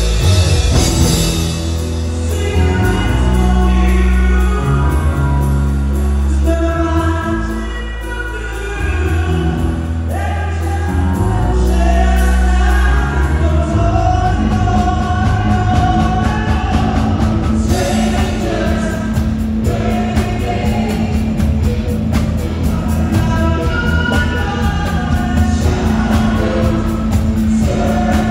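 Live band playing amplified pop music, with several singers over electric bass guitar and keyboards. A strong moving bass line carries the first half, and from about halfway the bass holds under a steady beat.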